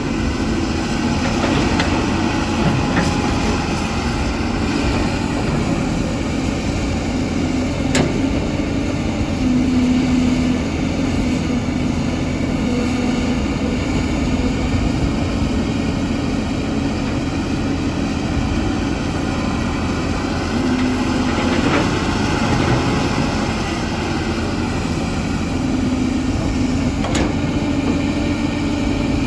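Caterpillar 320 hydraulic excavator's diesel engine running steadily, its note rising and falling as the hydraulics take load, with two sharp knocks, one a quarter of the way in and one near the end.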